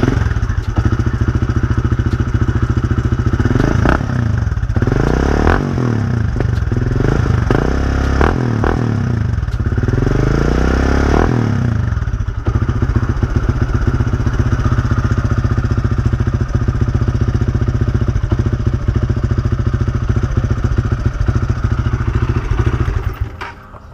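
Honda motorcycle single engine running through a red Leo power pipe aftermarket slip-on exhaust. It idles, is revved up and down several times between about 4 and 12 seconds in, then idles steadily again; the sound drops away near the end.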